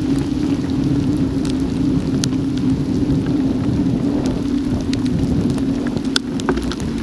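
Heavy rain striking an action camera on a moving mountain bike: a steady, dense rushing noise with scattered sharp ticks of single drops hitting the camera.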